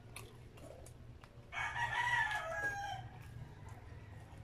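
A rooster crowing once, a call of about a second and a half that starts suddenly, holds, then falls in pitch at the end.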